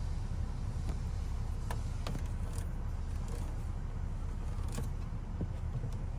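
Steady low rumble inside the Land Rover Defender's cabin with the vehicle running, and a few light clicks as the rear climate-control knobs are handled and pressed.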